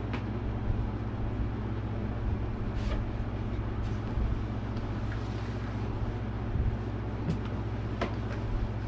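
Steady low background hum, with a few soft clicks and rustles of cardboard boxes being opened and a cloth-bagged model horse lifted out.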